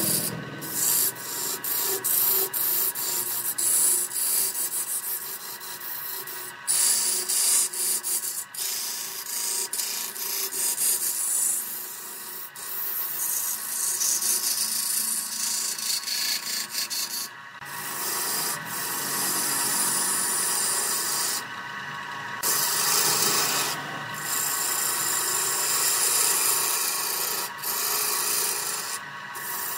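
Lathe turning tool scraping a spinning wooden vase, a rough hissing scrape that breaks off briefly several times as the tool is lifted. Underneath runs the lathe motor's steady whine.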